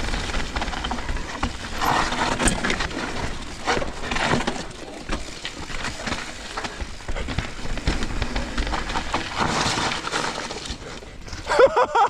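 Mountain bike riding down a wet dirt trail: tyres rolling over mud and rocks with frequent knocks and rattles from the bike, under a steady low wind rumble on the microphone. A brief, louder pitched sound comes near the end.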